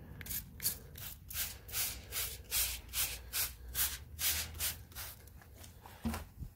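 Plastic trigger spray bottle squirting liquid onto a pork roast: a rapid run of about fifteen short hissing squirts, roughly three a second, that stops about five seconds in.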